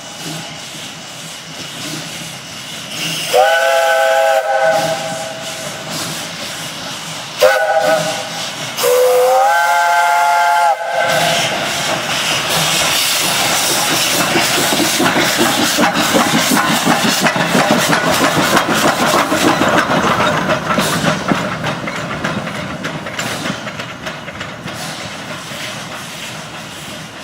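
Steam locomotive's chime whistle sounding three blasts, the last one longest and sliding up in pitch as it opens, followed by a long rush of hissing steam that swells and then slowly fades.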